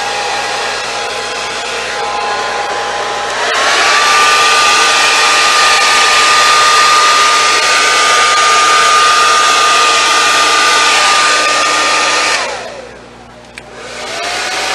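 Handheld hair dryer blowing air onto wet paint with a steady whine. It is switched to a higher, louder speed about three seconds in. Near the end it is switched off, its whine falling away, and then started again with a rising whine.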